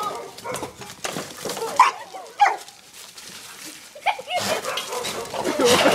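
Several dogs barking and yelping in a scuffle at close quarters. There are sharp cries about two seconds in and again near four seconds, and the loudest, busiest stretch comes near the end.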